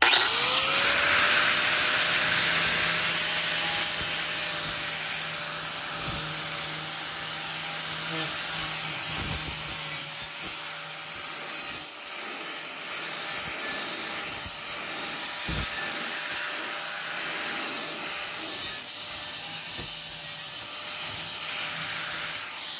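Hand-held rotary power tool with an abrasive disc scuffing the metal headlight header bar, roughening the bonding surface for epoxy adhesive. The motor starts suddenly and rises quickly to a steady whine, with the scratchy rasp of the disc on metal over it.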